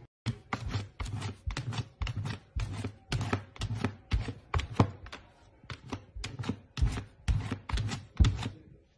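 A golden retriever puppy pawing and scratching at a window pane: a quick run of sharp taps and scrapes, about three a second, with a short pause a little past the middle.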